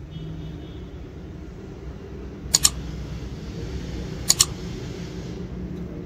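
Two sharp double clicks, about two and a half and four and a quarter seconds in, from the small metal parts of a Honda CD70's timing-chain tensioner rod being handled, over a steady low background hum.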